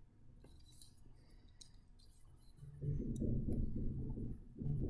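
Faint taps and scratches of a stylus writing on a tablet screen, then a low muffled rumble that comes twice, each time for about a second, near the end.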